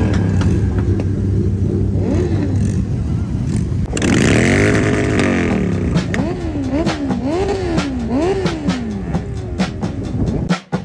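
Several motorcycle engines idling, with throttle blips: one long rev that rises and falls about four seconds in, then four quick revs in a row. The sound cuts off just before the end.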